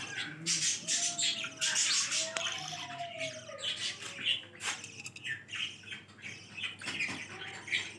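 Budgerigars chirping and squawking, a busy run of short raspy calls.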